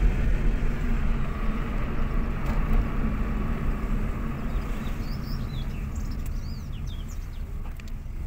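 Steady low road and engine rumble of a car driving, heard from inside the car, easing slightly toward the end. A few short high chirps come in during the last few seconds.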